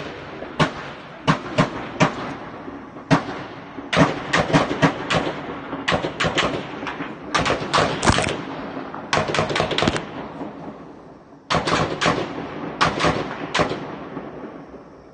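Gunfire in repeated rapid bursts of several shots each, with an echoing tail after each burst, dying away near the end.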